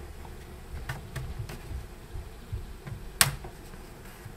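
Thin plastic pry tool working along the seam of a laptop's bottom panel, with handling rumble and a few light clicks, then one sharp, louder click about three seconds in as a panel clip snaps free.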